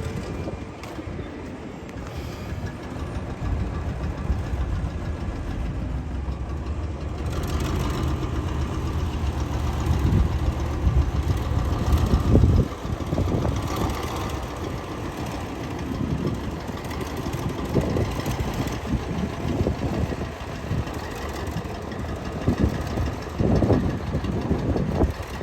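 Heavy earthmoving machinery or truck engine running at a low rumble, growing louder about a third of the way in, with irregular knocks and clatter throughout.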